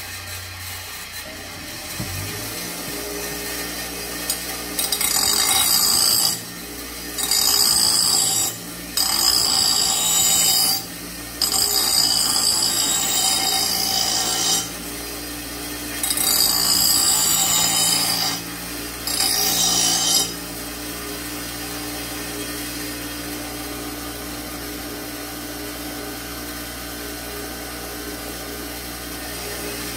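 Bench grinder motor running with a steady hum, and a steel mower blade pressed against the wheel in six short grinding passes of one to three seconds each, a harsh hiss of metal being ground. Metal is being shaved off the heavy end of the blade to balance it.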